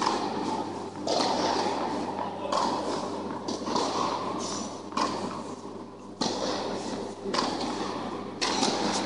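Tennis balls struck by rackets, a sharp pop every second or so, each ringing out in the long echo of a large indoor tennis hall.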